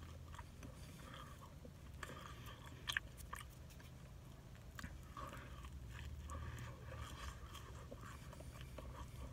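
A person chewing and biting into a slice of pizza close to the microphone, with scattered crunchy clicks; one sharp click about three seconds in. A steady low hum runs underneath.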